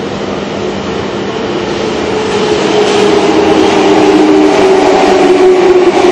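Kintetsu electric commuter train approaching and running into an underground station platform, growing steadily louder, with the running noise echoing off the tunnel and platform walls. From about halfway in, a whine in several tones rises above the rumble and falls slightly in pitch as the train comes alongside.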